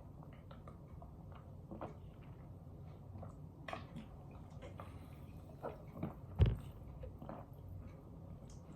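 Person drinking sparkling water: scattered soft swallowing and mouth clicks, with one louder thump about six and a half seconds in.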